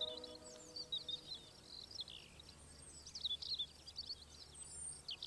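Birds chirping and twittering: many short, quick calls sweeping up and down, over a faint low hum.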